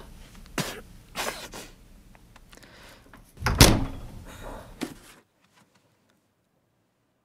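Small refrigerator door pushed shut with one loud thud about three and a half seconds in. Before it come a few lighter knocks and clicks of a milk carton being handled, and after it a couple of fainter knocks. The sound then cuts off to dead silence.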